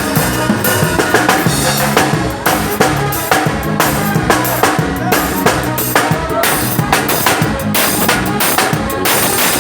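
Live band playing an instrumental with a steady beat during a sound check, the drum kit's kick and snare hits loudest over bass and other instruments.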